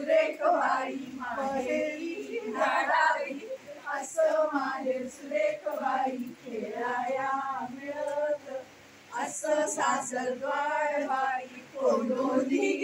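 A group of women singing a devotional folk song together, their voices held in long, wavering notes with short breaks between lines.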